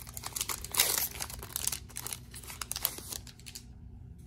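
The wrapper of an Opening Day baseball card pack being torn open and crinkled by hand: a dense crackling, loudest about a second in, that stops near the end.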